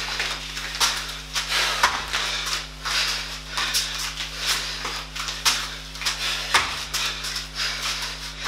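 A barefoot man exercising on a foam floor mat: quick, irregular slaps and scuffs, with two heavier thuds about two seconds and six and a half seconds in. A steady low hum runs underneath.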